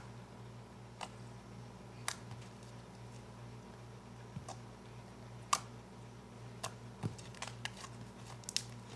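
Putty-like slime being pressed and poked with fingertips, giving scattered sharp clicks, about eight over several seconds, as air pockets in it pop. A steady low hum runs underneath.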